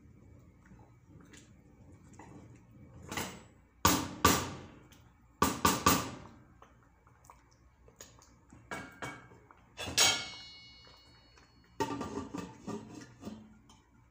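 Wooden spoon knocking against a granite-coated cooking pot as thick mashed rice is stirred: a string of sharp knocks and scrapes. About ten seconds in comes a clink that rings briefly, and near the end a clatter as a glass lid is set on the pot.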